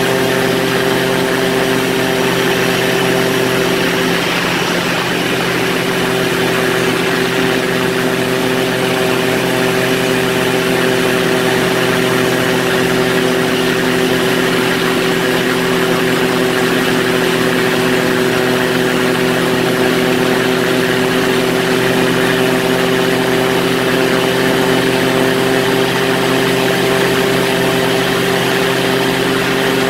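Quicksilver ultralight's engine and pusher propeller running steadily in flight, with a rush of wind past the open seat.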